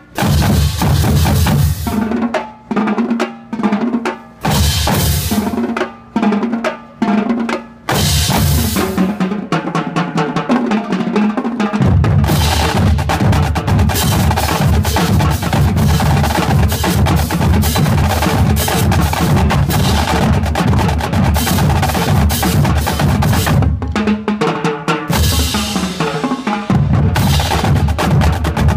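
High school drumline playing snare and bass drums: short stop-start phrases with brief breaks over the first several seconds, then dense, continuous drumming with rolls.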